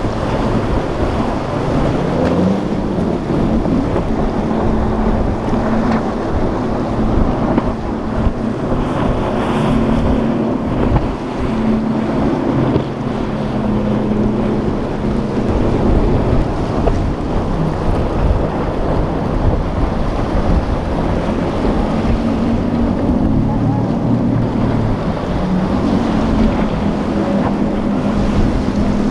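Outboard engines of center-console boats running at speed through choppy water, a steady engine drone under splashing spray and waves, with wind buffeting the microphone.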